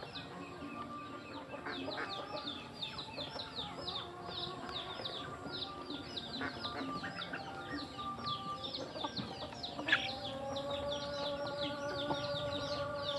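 Young chickens and chicks feeding, with a constant fast stream of high, falling peeps over low clucking. There is a single sharp click about ten seconds in.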